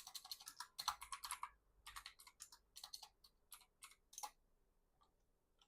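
Quiet typing on a computer keyboard: a quick run of key clicks, then scattered taps that stop about four seconds in.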